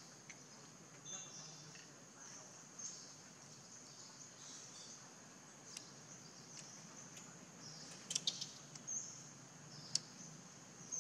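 Steady, high-pitched outdoor insect buzz, with a few sharp clicks, a quick cluster of them about eight seconds in.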